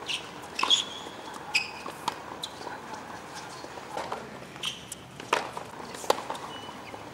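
Tennis rally on a hard court: sharp racket-on-ball hits every second or so, mixed with the players' footsteps and short high shoe squeaks on the court surface.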